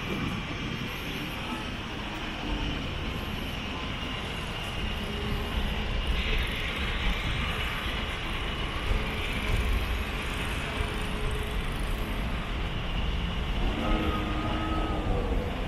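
Steady city road traffic: cars and trucks passing with a constant low rumble, and a hiss that grows louder about six seconds in.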